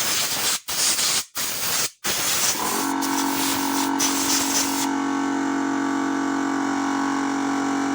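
Compressed air hissing from a blow gun in several short blasts, then one longer blast that stops about five seconds in. From about two and a half seconds in, an air compressor's motor runs with a steady hum.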